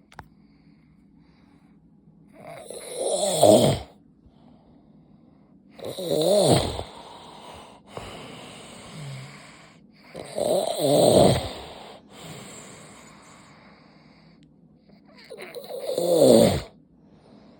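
A man snoring loudly in his sleep, four long snores spaced about four to five seconds apart, with quieter breaths in between.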